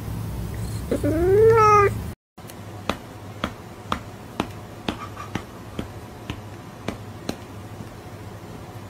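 A cat's meow that rises and then falls in pitch, about a second in, from a cat-meme sound clip. After a brief gap of silence, a run of short sharp clicks follows at about two a second.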